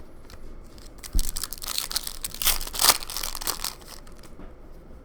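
Plastic wrapper of a Panini Prizm basketball card pack crinkling and tearing as it is ripped open by hand, a dense crackle with sharp snaps that starts about a second in and eases off near four seconds.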